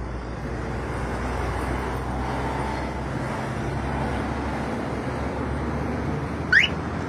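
Toyota Land Cruiser Prado's engine idling steadily after a remote start, with a short rising chirp near the end.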